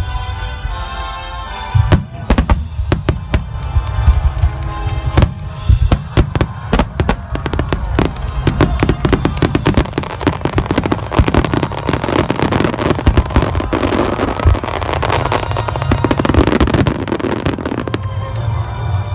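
Aerial fireworks shells bursting in quick succession over music. From about eight seconds in, a dense run of rapid small bursts sets in and stops abruptly near the end.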